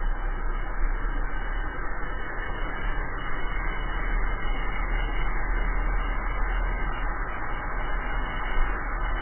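Steady rush of wind on the microphone mixed with tyre noise on asphalt, from a drift trike coasting downhill at speed.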